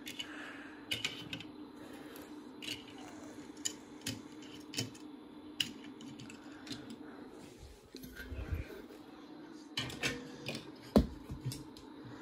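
Scattered light clicks and knocks of objects being handled and set down around a wooden TV cabinet, with a sharper knock about eleven seconds in, over a faint steady hum.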